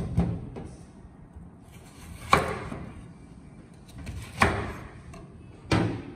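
Kitchen knife chopping through onion halves onto a wooden cutting board: four sharp chops about two seconds apart, the loudest a little over two seconds in.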